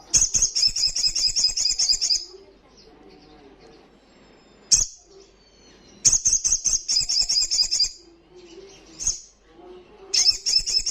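Little spiderhunter (sogok ontong) singing: three bursts of rapid, high chip notes, about seven a second and each about two seconds long. A single sharp click falls between the first two bursts.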